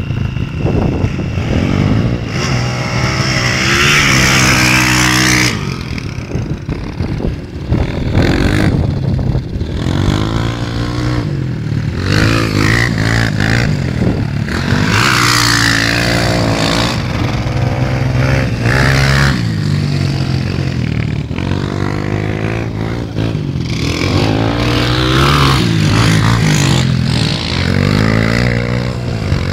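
Dirt bike engines revving up and down repeatedly as the bikes accelerate and slow, the pitch climbing and dropping again every few seconds.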